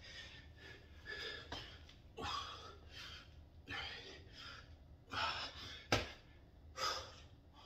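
A man breathing hard from exertion during a push-up, squat and pull-up workout, heavy breaths coming about once a second. A single sharp click about six seconds in.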